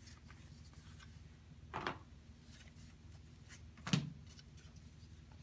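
Cardboard packaging inserts from an Apple Watch box being handled and set down on a wooden table: two brief taps about two seconds apart, the second louder, over a faint steady hum.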